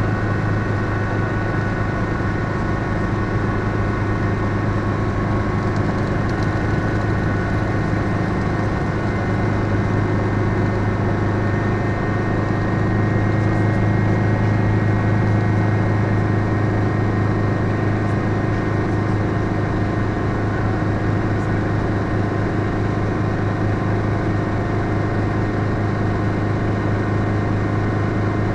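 Schweizer 300C helicopter in flight, heard from inside the cockpit: its four-cylinder Lycoming piston engine and rotors make a steady low drone with a few thin whining tones above it. It grows slightly louder about halfway through.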